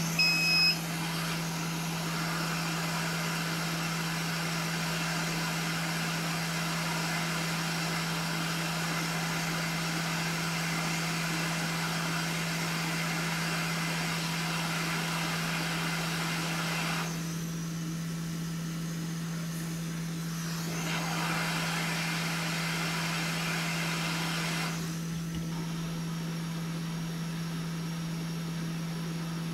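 A small electric blower runs steadily with a low hum underneath. Its airy hiss drops in level for a few seconds about seventeen seconds in, and again near the end.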